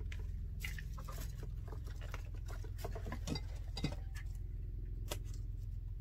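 Bottle of leave-in hair treatment being unsealed and handled: scattered small clicks, crinkles and scrapes of the seal and packaging, over a steady low hum.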